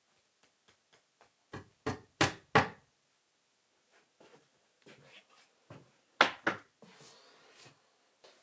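Sharp knocks and taps on wood: a few soft taps, then three loud knocks about a third of a second apart around two seconds in, and two more loud knocks just after six seconds.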